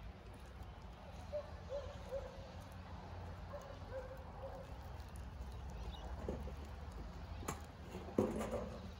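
Birds calling: a run of short, low, repeated notes through the first half, over a steady low background rumble, with a single louder short sound near the end.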